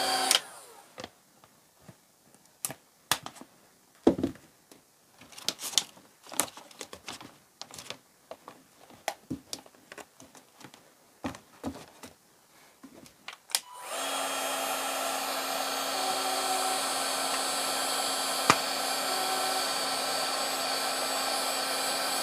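Ryobi One+ 18V cordless heat gun blowing with a steady hum, switched off just after the start, then switched back on about 14 seconds in and running steadily. In between, scattered light taps and clicks of hands working the vinyl wrap and setting the tool down.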